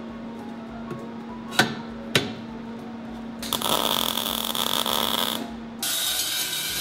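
Two sharp clicks as magnetic welding squares snap onto a steel tube frame. Then about two seconds of arc welding on the frame's corner, a steady crackling hiss. A cordless drill runs near the end.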